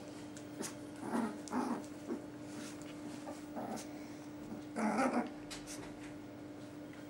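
Dogs at play, a Boerboel and a Chihuahua puppy, with about five short dog vocalisations in quick bursts, the loudest about five seconds in.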